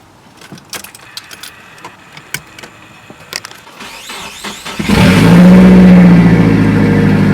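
A few light clicks, then a car's four-cylinder engine cranks briefly and catches about five seconds in, flares up and settles into a steady idle. It is starting on freshly installed SplitFire ignition coil packs.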